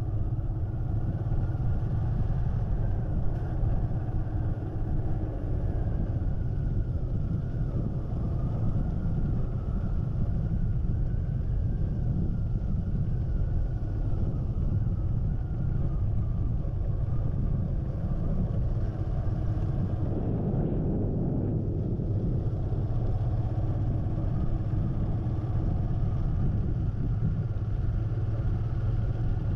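Steady low rumble of a vehicle travelling along a paved road: engine, tyre and wind noise, with a faint wavering whine through the middle stretch.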